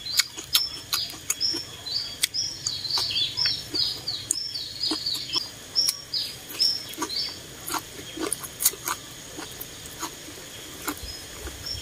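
Close-up eating sounds: chewing, slurping noodles and sharp mouth and chopstick clicks. Behind them a small bird chirps in quick repeated high notes, about three a second, that thin out after about seven seconds.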